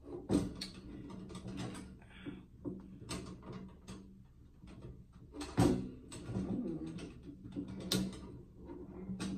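Metal wire dish rack parts clinking, tapping and rattling as the rack is fitted together by hand: irregular knocks and clicks, the sharpest about half a second in, just past the middle and about eight seconds in.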